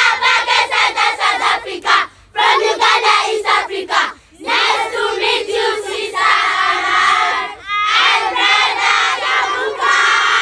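A group of children chanting loudly together in short rhythmic phrases, breaking off briefly about two and four seconds in, then turning to drawn-out shouting and cheering in the second half.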